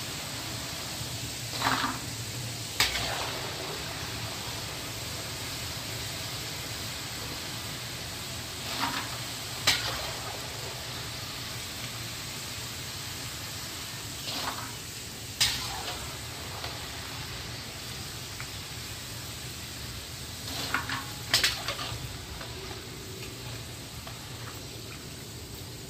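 Potato fries deep-frying in hot oil in a large wok, with a steady sizzle. A metal skimmer clinks and scrapes against the pan in short pairs about every six seconds as the fries are stirred and lifted.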